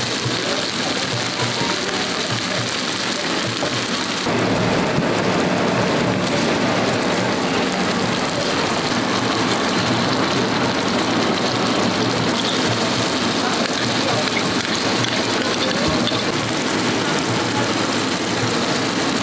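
Hot oil sizzling in a stainless steel frying pan as chopped tomatoes, onion and peppers fry. The sizzle gets louder about four seconds in.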